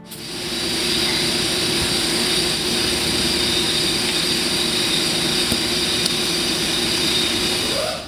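Steady machine noise in a workshop, an even hum with a hiss, that starts and stops abruptly, heard while powered equipment raises a vehicle's axle.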